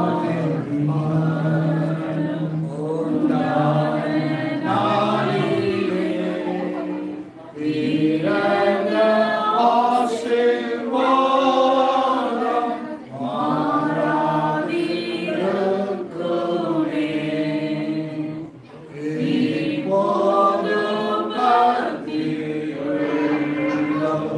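A congregation singing a hymn together in long held phrases, with short pauses for breath about 7 and 18 seconds in.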